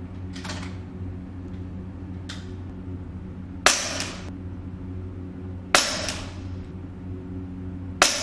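KalibrGun Cricket .25 PCP bullpup air rifle firing three shots about two seconds apart, each a sharp crack with an echoing tail off the indoor range walls, over a steady low hum. Two fainter snaps come before the first shot.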